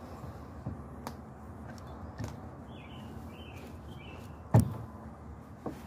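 Rope and an aluminium Port-a-Wrap friction device being handled against a tree trunk: a few sharp knocks and light rustling, the loudest knock about four and a half seconds in. A bird chirps faintly three times around the middle.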